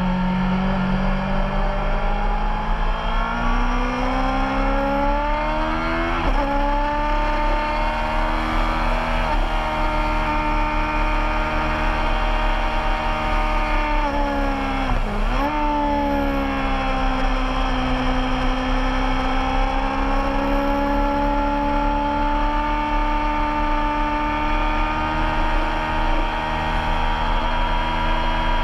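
Race motorcycle engine running hard on track, heard from on board over wind rush. Its pitch climbs, breaks at a gear change about six seconds in, drops sharply and climbs back about halfway through, then holds fairly steady.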